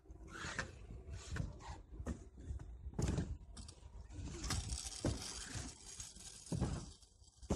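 Freestyle scooter rolling down a skatepark ramp and across the asphalt, its small hard wheels making a steady rolling rumble and hiss, with several sharp knocks from wheels and deck hitting the ramp.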